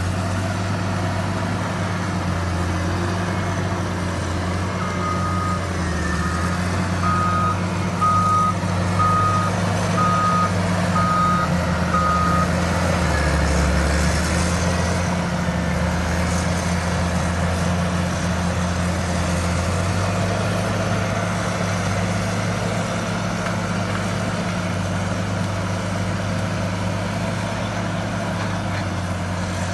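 Caterpillar 140M motor grader's diesel engine running steadily under work. A reversing alarm beeps about once a second for several seconds, starting about five seconds in, as the grader backs up.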